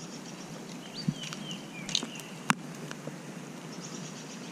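Quiet streamside ambience with a faint steady hiss. A few short bird chirps come about one and a half to two seconds in, and a single sharp click about two and a half seconds in.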